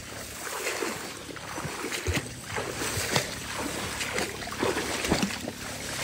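Footsteps pushing through tall grass, the stems swishing against legs with each stride, with soft irregular footfalls about once a second.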